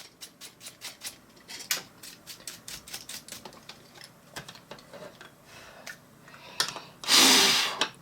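Light, irregular clicks and taps of small computer parts being handled, from the opened Mac mini G4 and its AirPort card. About seven seconds in there is a brief, loud rush of noise.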